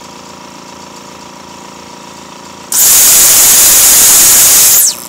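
Homemade spark-plug arcjet thruster test-fired on compressed air: a very loud rushing blast starts about two and a half seconds in, lasts about two seconds, and cuts off suddenly with a quick falling whistle. Before the blast there is a steady hum.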